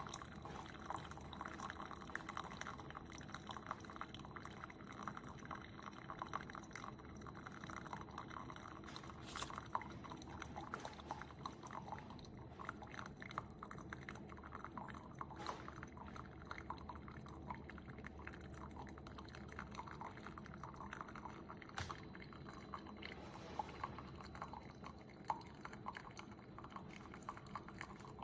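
Single-serve coffee maker brewing, hot coffee streaming and dripping into a mug with a steady crackly trickle.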